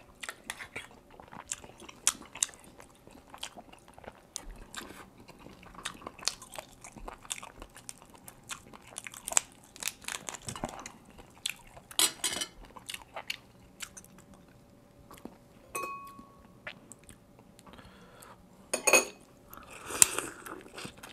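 A person eating oysters and lobster close to the microphone: chewing and biting, with scattered clicks and crackles from a fork on oyster shell and lobster shell being pulled apart. The loudest bites come near the end.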